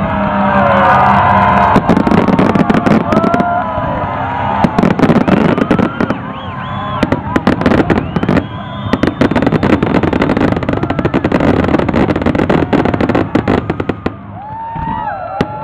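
Fireworks display: a dense barrage of aerial shells and comets, with rapid sharp bangs and crackling throughout and a brief lull near the end.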